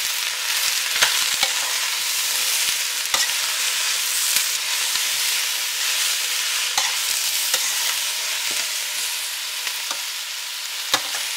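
Onions, mushrooms and bell peppers sizzling in olive oil in a stainless steel pot, stirred with a spoon that knocks and scrapes against the pot now and then.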